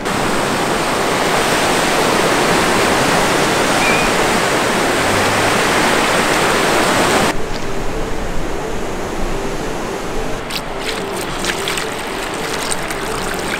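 Ocean surf washing up at the water's edge, a loud steady rush that cuts off suddenly about seven seconds in. After that, quieter background with a few small splashes and knocks as water is poured from a plastic bucket into a plastic tub.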